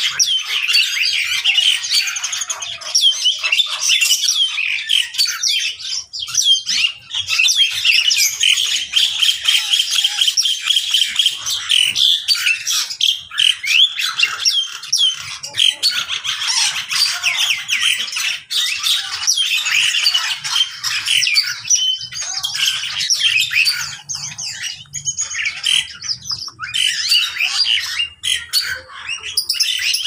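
A crowded mixed-species aviary of cage birds calling all at once: a continuous din of many short, overlapping calls.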